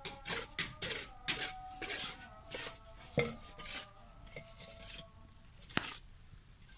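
Small metal hand trowel scraping and tapping wet cement mix packed into a metal mould, in quick irregular strokes that thin out after about four seconds.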